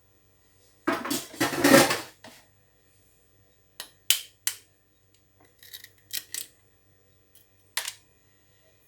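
Kitchen dishes being handled while separating eggs: a loud clatter about a second in, then a scattering of short sharp clinks against a bowl.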